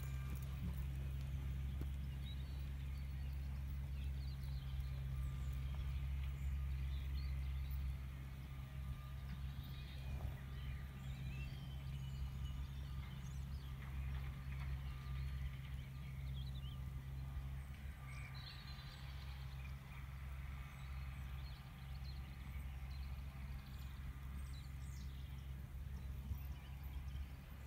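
Horse's hoofbeats on a sand arena as it trots past close by, growing fainter after about eight seconds as it moves away, over a steady low rumble.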